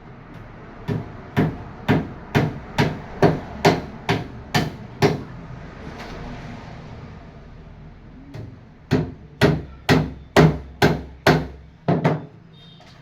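Hammer blows on wood, about two strikes a second: a run of about ten, a pause of a few seconds, then about eight more.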